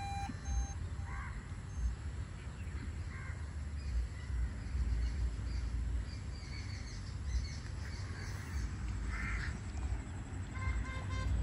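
Crows cawing a few times over a steady low wind rumble on the microphone, with a few short electronic beeps near the start and again near the end.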